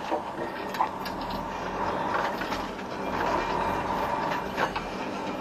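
Freightliner Cascadia truck running, a steady rumble and hum with a few short clicks and rattles.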